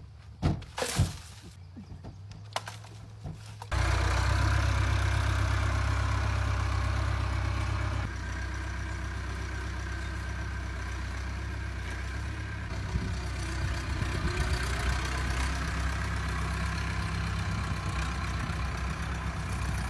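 A few knocks, then about four seconds in an engine comes on suddenly and runs steadily with a low rumble, a little quieter from about eight seconds in.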